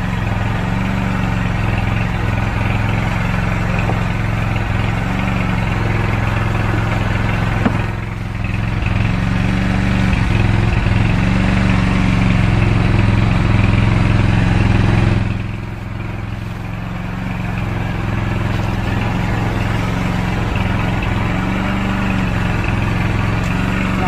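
A loud, steady engine running without a break, with a slow waver in its pitch every few seconds.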